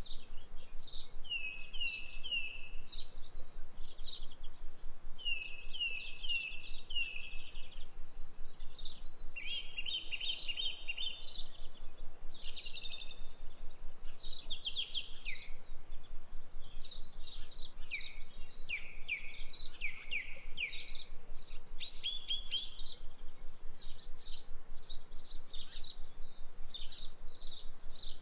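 Small birds chirping and singing continuously, in quick runs of short, falling chirps.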